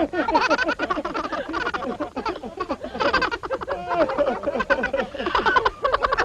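Fast, wordless, warbling voice-like chatter, high and quickly changing in pitch, in the manner of cartoon character noises.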